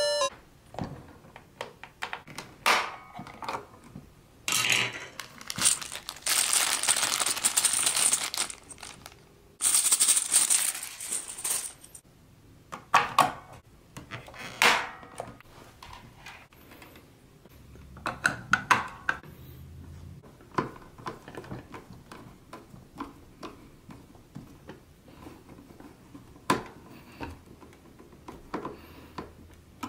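Hands handling a plastic toy claw machine: scattered clicks and knocks of plastic, with stretches of crinkling, rustling noise between about five and twelve seconds in.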